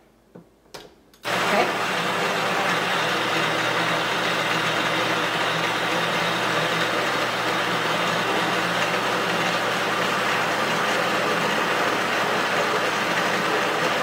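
The Casabrews 5700Gense espresso machine's built-in coffee grinder grinding beans into the portafilter. It starts about a second in, after a couple of clicks, and runs as a loud steady whir.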